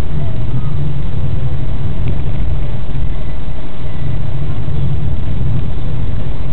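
Loud, steady low rumble of a car's engine and road noise, heard from inside the moving car's cabin.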